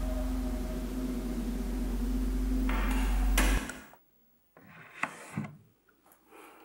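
A film-score drone: a deep steady hum with held tones and a rising hiss swells, then cuts off abruptly about three and a half seconds in. After it, a quiet room with a few faint rustles and light knocks.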